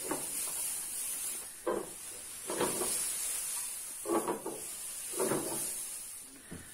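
Short, indistinct bits of a person's voice every second or so over a steady high hiss.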